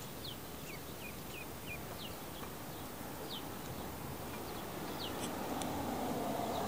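Black Swedish ducklings peeping: short, high, downward-sliding peeps, several in quick succession at first, then a few spaced ones. A low rushing noise swells under them near the end.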